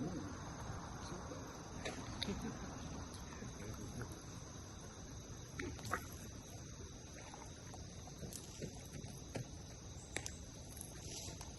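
Insects chirring steadily in a high, even drone, with a few scattered sharp clicks.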